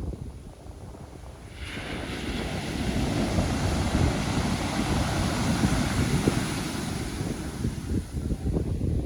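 Pacific Ocean surf: a wave breaks about a second and a half in and its wash runs on for several seconds, easing off near the end. Wind buffets the microphone underneath.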